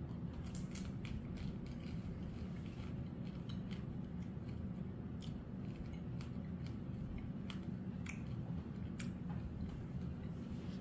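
Crunching of hard candy-coated fruit being bitten and chewed: a scattered run of short, sharp crackles of the candy shell breaking, over a steady low background hum.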